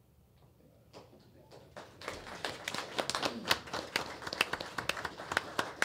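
A small group clapping in a meeting room, starting about two seconds in after a quiet moment, with some voices under it.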